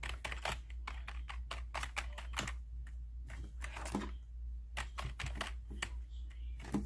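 Fingers typing on a Corsair backlit computer keyboard: an irregular run of key clicks over a steady low hum.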